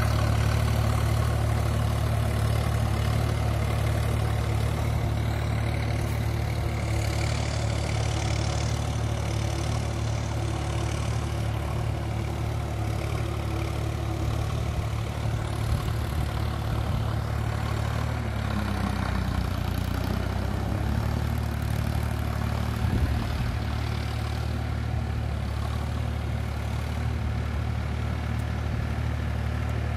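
Sonalika DI 47 4x4 tractor's diesel engine running steadily under load while it drives a Shaktiman rotavator through wet paddy mud; the engine note drops briefly a little past halfway.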